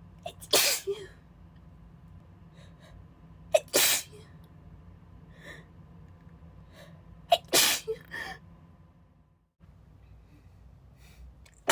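A woman sneezing in a breathy, spraying fit: three sneezes about three and a half seconds apart, each after a quick sharp intake of breath, with a fourth starting near the end. The fit comes from her being still a little sick.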